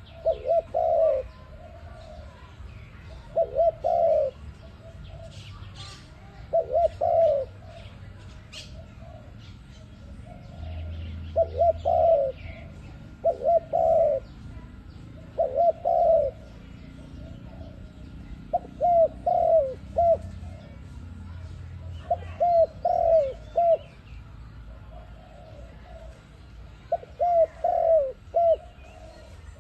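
A dove cooing in short phrases of two to four low notes, repeated every two to three seconds. Faint chirps of small birds sound behind it.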